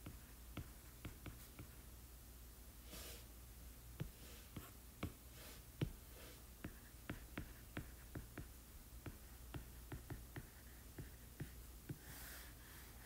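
Stylus tapping and writing on a tablet's glass screen: faint, irregular light clicks, several a second, as strokes are written and a tool is picked. A soft hiss comes about three seconds in and again near the end.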